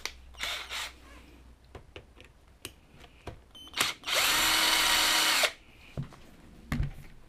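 Raxtool cordless drill-driver running at one steady speed for about a second and a half, starting about four seconds in, turning a screw at the front steering hub of an RC truck. A few light handling clicks come before it.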